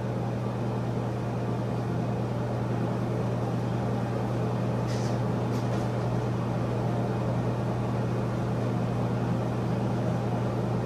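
Steady low hum of a small electric motor with a whirring haze. A couple of brief soft hissing rustles come about five seconds in.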